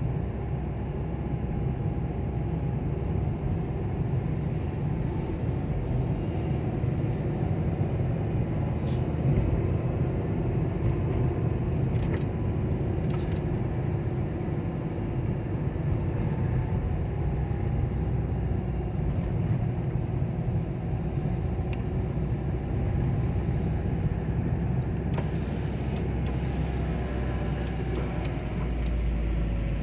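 Car driving, heard from inside the cabin: a steady low rumble of engine and tyres on the road, with the engine note drifting and falling near the end.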